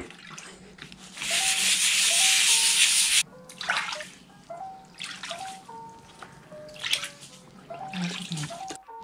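Water spraying for about two seconds, rinsing degreaser off a bicycle drivetrain part, and cutting off suddenly; scattered short splashes and drips follow. Light background music with short melodic notes plays throughout.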